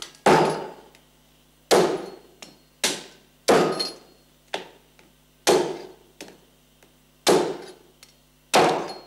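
Heavy kitchen knife chopping through a live lobster's tail shell onto a wooden cutting board, cutting the tail into sections: about seven hard chops roughly a second apart, with a few lighter knocks between them.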